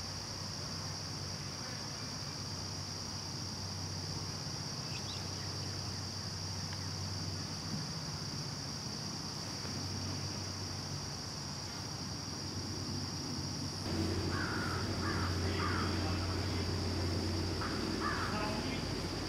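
Steady high-pitched insect chorus of crickets or katydids over a low hum. About two-thirds of the way through, a louder low rumble comes in, with a few short calls over it.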